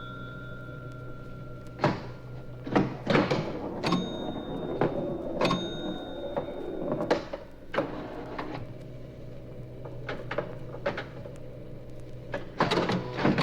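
Irregular mechanical clicks and knocks, about a dozen spaced unevenly, over a steady low hum, coming between telephone bell rings on an old sound-effects record.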